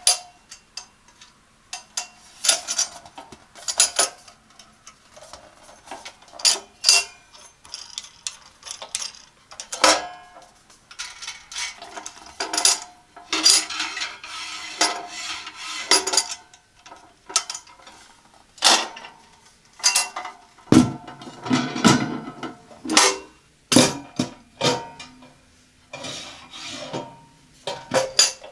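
Black metal wire-frame coffee pod drawer being handled: a long series of sharp metallic clicks, knocks and clinks, with longer scraping rattles when the tray slides in its frame.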